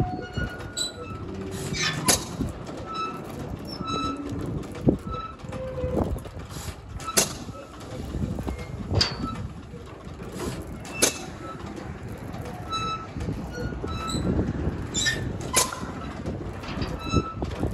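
Hit-and-miss engine running a rusty Ferris wheel. It fires with a sharp bang every two to four seconds and coasts between firings over a steady mechanical rumble. Short high squeaks repeat as the wheel turns.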